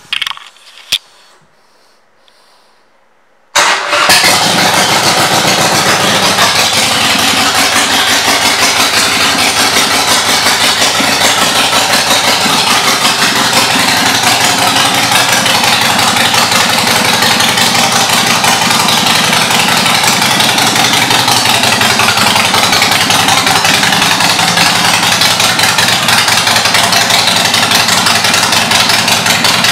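Harley-Davidson Sportster Forty-Eight's air-cooled V-twin starting about three and a half seconds in, after a couple of clicks, then idling steadily and loudly through aftermarket exhaust pipes.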